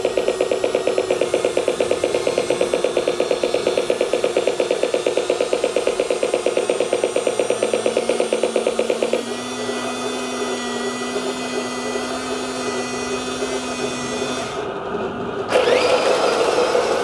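Radio-controlled model tank with plastic motors and gears. For about nine seconds it makes a fast, even pulsing motor sound. Then comes a steadier hum with a thin whine while the turret turns. Near the end a louder, rising motor whine starts as the tank drives off over gravel.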